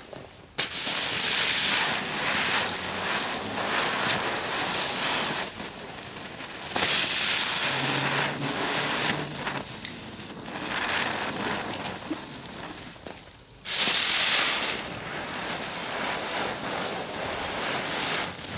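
Electric Flowers ground-bloom spinners (small category 1 fireworks) spinning with a steady loud hiss and no bangs. The hiss starts suddenly about half a second in and flares louder at about 7 and 14 seconds.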